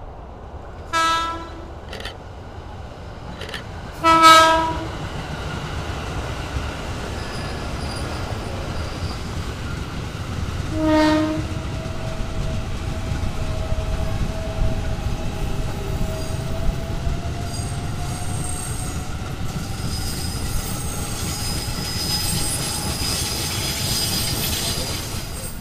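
Commuter electric multiple unit sounding its horn in a few short blasts, the loudest about four seconds in and another about eleven seconds in. It then runs closer with a steady rumble from the wheels on the rails and a whine that slowly rises in pitch. High-pitched squealing and whining join in near the end as it passes.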